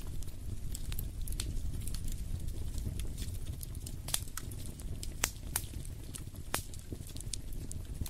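Wood fire crackling in a fireplace: irregular sharp pops and snaps over a low steady rumble, with a few louder pops in the second half.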